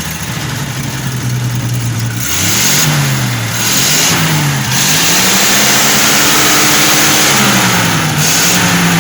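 Petrol engine of a Chevrolet C65 truck, just started after two years standing, idling and then revved: two short blips of the throttle, then a longer rev held for about two and a half seconds before it drops back to a faster idle.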